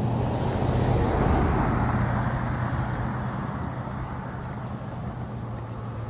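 A car passing close by and driving away: its tyre and engine noise swells to its loudest about a second in, then slowly fades.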